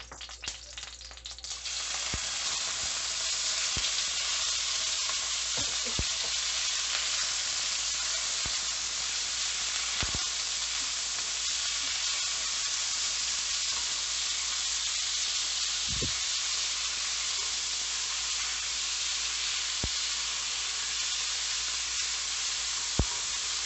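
Strips of raw beef frying in hot oil in a heavy pan: a steady, dense sizzle that starts about two seconds in as the meat hits the oil. A few sharp knocks come from the wooden spoon against the pan as the meat is stirred.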